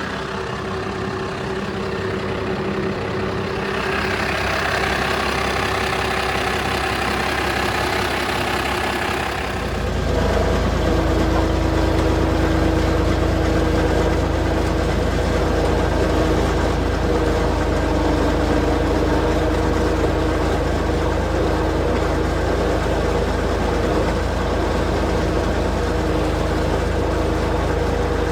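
A vehicle engine running steadily. About ten seconds in, a deeper, louder low rumble sets in and then holds steady.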